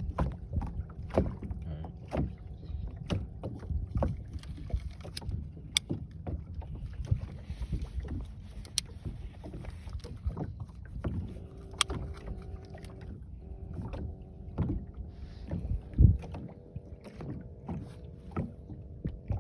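Knocks, clicks and thumps of handling in a fishing boat over a low steady rumble and faint hum, with one heavier thump about sixteen seconds in.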